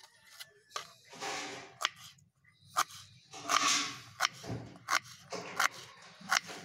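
Knife chopping onion on a wooden chopping board: sharp knocks of the blade hitting the board at irregular intervals, with two longer stretches of scraping and rustling in between.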